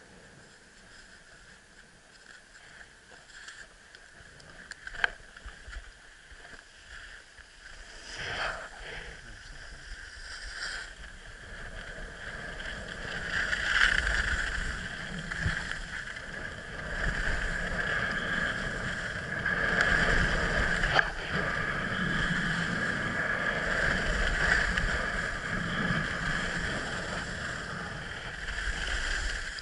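Skis sliding and carving over groomed snow, a steady hissing scrape that builds from about ten seconds in and surges and eases with the turns. Before that, a few sharp clicks and a knock as gloves and poles are handled.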